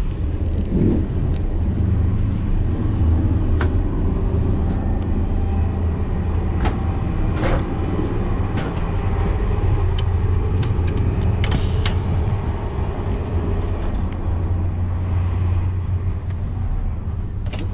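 Cabin running noise of a TGV Duplex high-speed train at speed: a steady deep rumble, with scattered sharp clicks and knocks.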